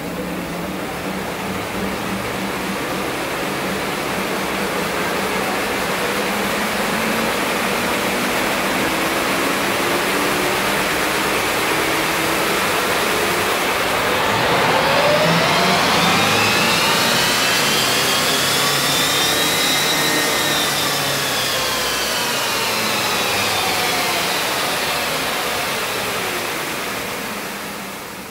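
Palatov D2EV electric race car running on chassis dyno rollers, the noise building steadily. About halfway a whine from the electric motor and drivetrain climbs in pitch toward top geared speed, peaks, then falls away as the car slows.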